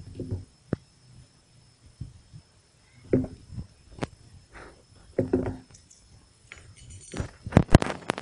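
Steel pliers clicking and clinking against the thin metal of soda bottle caps as they are gripped and bent, with scattered single clicks, a couple of louder handling rustles, and a quick run of sharp metallic clicks near the end.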